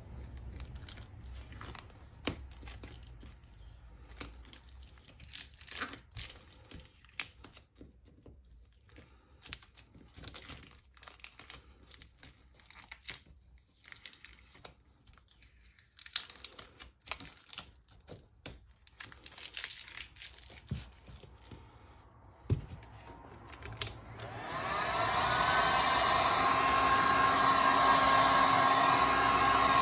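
Sign paint mask being peeled off carved oak and crumpled in the hands, with scattered crackling and crinkling. About 24 seconds in, a heat gun switches on with a rising whine as its fan spins up, then blows steadily.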